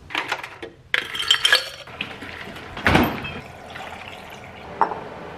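Glass clinks and a clatter of kitchen items, with one louder knock about three seconds in, then almond milk poured from a bottle into a tall glass, a steady pouring sound for the last couple of seconds.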